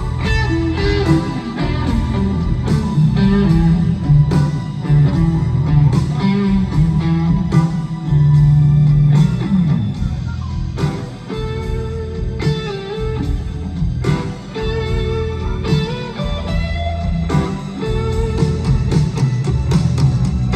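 Live rock band playing a slow, bluesy instrumental passage, with an electric guitar playing lead over bass and a steady drum beat. There is no singing.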